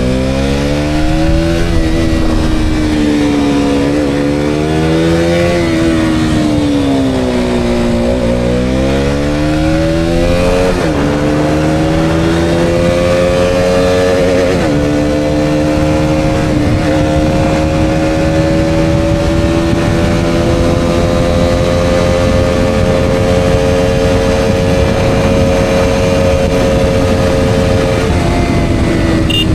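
KTM Duke 200's single-cylinder four-stroke engine on a ride: revs swing up and down several times through the bends, then drop sharply at two upshifts about a third and half of the way in. After that it pulls with slowly climbing revs under steady throttle, easing off near the end.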